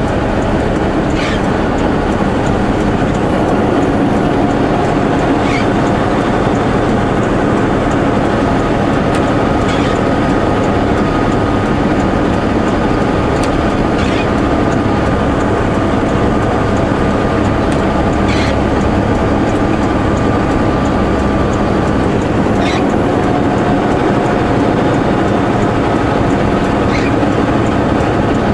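Semi truck pulling a super-B trailer train: steady engine and road noise while driving, with a faint click every four seconds or so.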